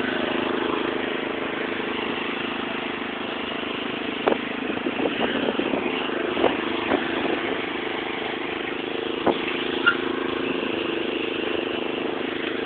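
Ride-on lawn mower engine running steadily, with several short sharp clicks or knocks scattered through the middle.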